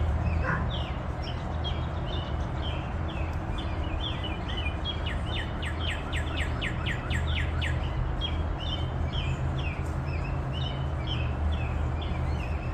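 Songbirds chirping and calling, with a fast run of short descending notes about halfway through. A steady low hum runs underneath.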